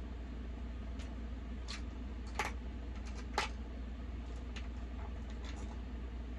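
Plastic lipstick tubes and makeup cases clicking and clacking as they are picked through, with two louder clacks about two and a half and three and a half seconds in. A steady low hum sits underneath.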